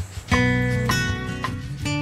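Background music: acoustic guitar plucking and strumming chords at an easy, steady pace.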